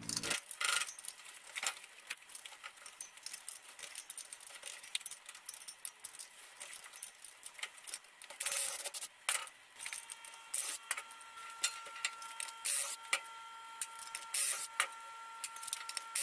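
Irregular light metallic clinks and rattles of hand tools and steel bolts as the rear sprocket is unbolted from the dirt bike's wheel hub. A short rasping burst comes about halfway through, and a faint steady whine comes in shortly after.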